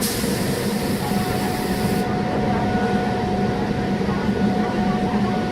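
MEMU electric local train running, heard on board: a steady rumble with a low hum and a faint steady whine. A high hiss fills the first two seconds and cuts off suddenly.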